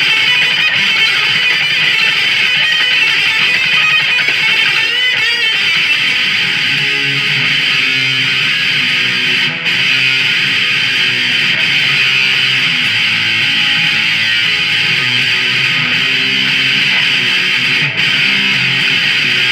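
Ibanez Artcore semi-hollow electric guitar played through an amplifier without pause, with two very brief breaks, about halfway through and near the end.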